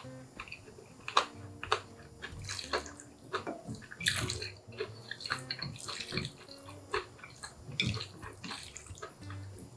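Close-miked wet chewing and slurping of Chapagetti, instant black-bean-sauce noodles, with many short irregular smacks and clicks from the mouth.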